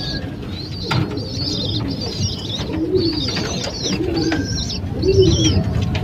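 Racing pigeons cooing, low coos coming about a second apart, with high, thin squeaky calls from other birds over them. There is a single sharp knock about a second in.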